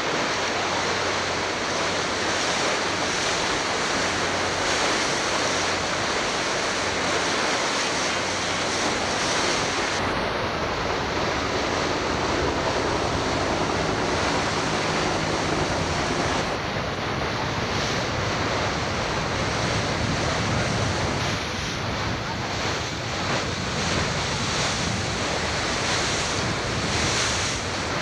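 Steady wind rushing over the camcorder microphone on the deck of a moving boat, mixed with the wash of water along the hull.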